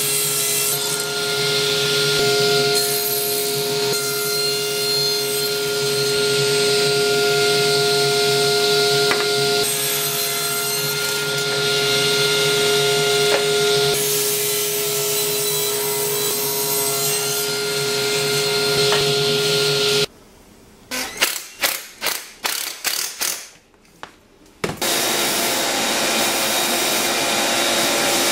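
Table saw running with a steady blade note, with the louder noise of the blade cutting 2x4 stock over several passes. About twenty seconds in the saw sound stops suddenly, and a few sharp wooden knocks follow. Then a steady machine hiss takes over without the saw's note.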